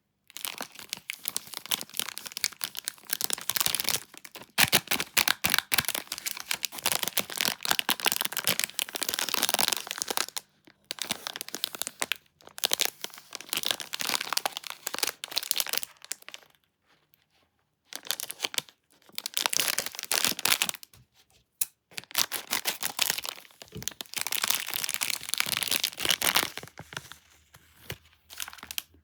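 Crinkly snack packaging being handled, crumpled and torn open, with dense crackling in several long bouts broken by short pauses.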